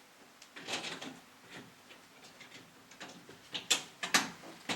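Scattered sharp clicks and light knocks of a fabric pelmet being clipped onto its mounting brackets, the loudest clicks coming in a cluster near the end.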